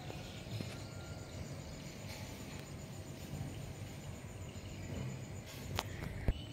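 Faint outdoor background noise with a thin, steady high-pitched tone, and two sharp clicks near the end.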